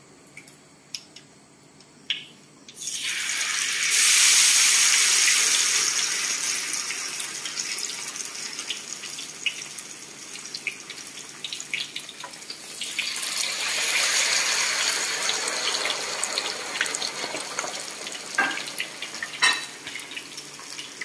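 Battered chicken pieces frying in hot oil in a wok, a loud sizzling hiss. It surges suddenly about three seconds in as a piece goes into the oil and slowly dies down, then swells again around thirteen seconds as a second piece is added.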